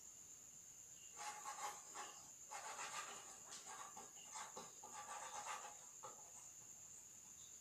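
Faint scratching of a drawing tool on paper as sketch strokes are drawn, in several short bursts from about a second in until about six seconds in, over a steady high thin tone.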